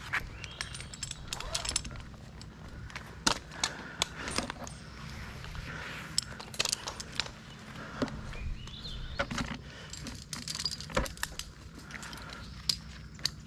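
Metal climbing and rigging hardware, such as carabiners and rigging rings, clinking and jangling in irregular sharp clicks.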